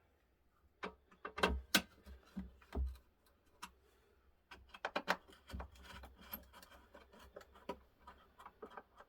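Irregular clicks, taps and a few heavier knocks from handling a 1970s Seiko day-date clock and its small parts, growing into a denser run of small clicks in the second half.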